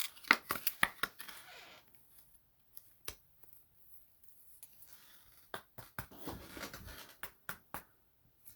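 Trading cards and their packaging being handled: a flurry of clicks and rustling near the start, a single click about three seconds in, then another flurry of clicks and rustling in the second half.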